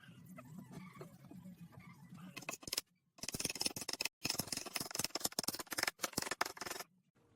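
Woodworking handling noises: scattered clicks and scrapes, then a dense run of rapid scratchy clicking and scraping, cut off abruptly several times.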